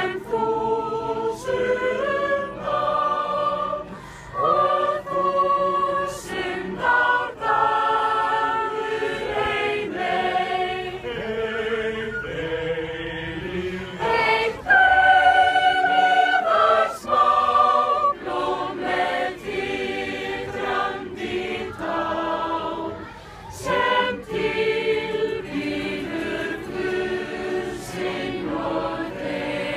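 A group of men and women singing together without accompaniment, long held notes stepping from pitch to pitch with short breaks between phrases.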